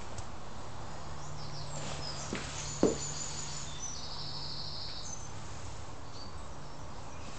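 Quiet background with a steady low hum and several high chirps, including one trill lasting about a second and a half. A single short knock about three seconds in is the loudest sound.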